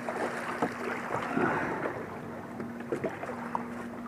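Light knocks and rattles of fishing gear being handled on a kayak, over a steady rushing background. A faint low hum drops out and comes back.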